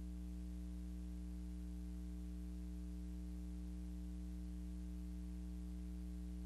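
Steady electrical mains hum, a low buzz with a few higher overtones, over a faint hiss; nothing else sounds.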